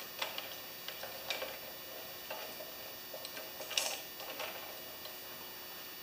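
Scattered light metallic clicks and ticks from a hand tool working the carburetor mounting bolts on a small engine, with a louder short clatter just before four seconds in.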